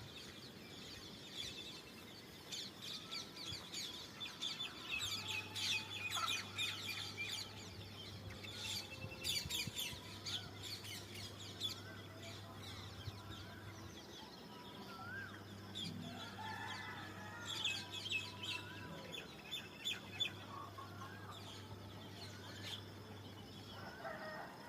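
Dawn birdsong: many small birds chirping and trilling, with chickens clucking and calling among them. The chirping is busiest in two spells, near the start and again about two-thirds through.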